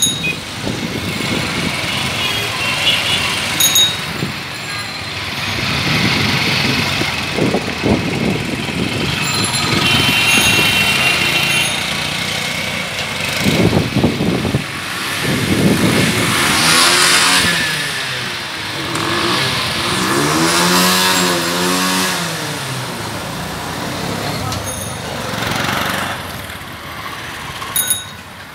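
Busy street traffic: three-wheeler auto-rickshaw engines and motorbikes running and accelerating, with voices and occasional short horn beeps.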